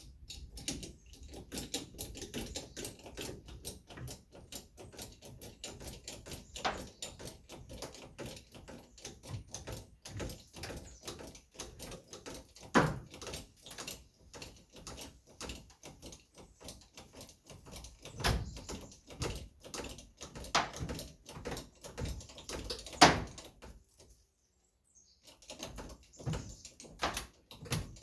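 A steady run of small, rapid clicks and knocks, broken by a few louder knocks and a short pause near the end.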